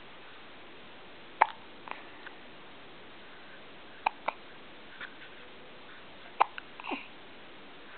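Hiccups: a string of short, sharp hics a couple of seconds apart, several of them in quick pairs.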